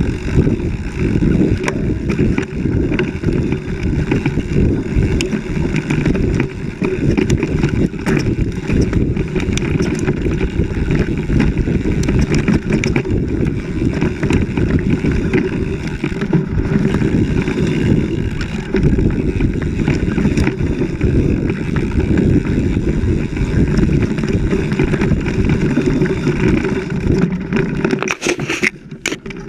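Wind buffeting the handlebar-mounted camera's microphone, along with the rumble and rattle of a bike riding fast over a dirt trail. It is a dense, steady noise that drops away sharply near the end.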